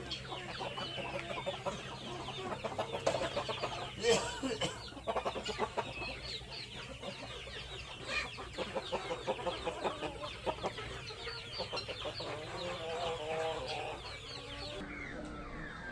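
A flock of chickens clucking and chattering, many short overlapping calls at once, with a few brief knocks about four seconds in.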